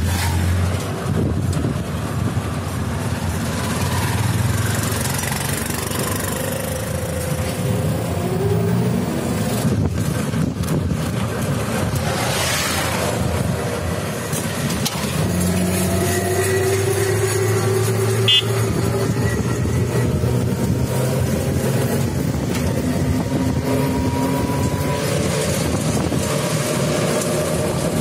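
Engine and road noise of a motor vehicle heard from on board while it drives along, the engine note rising and falling with speed over a steady rush of wind and tyres, with a brief louder whoosh near the middle.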